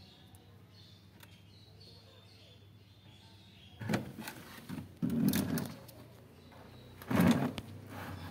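Handling noise from a phone camera being moved against a wall and wooden furniture: loud scraping and bumping in three bouts, about four, five and seven seconds in. Before that there are only faint, repeated high chirps.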